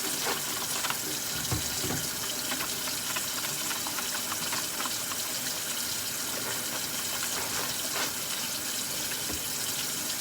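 Steady rush of water running, as from a tap, with a few faint small clicks over it.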